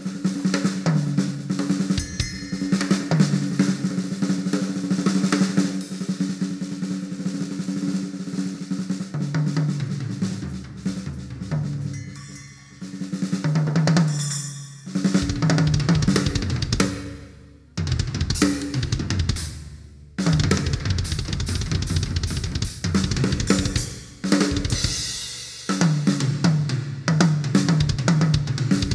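Acoustic drum kit played solo: fast fills and rolls across snare, toms and bass drum with cymbal crashes, broken by several brief pauses in the second half.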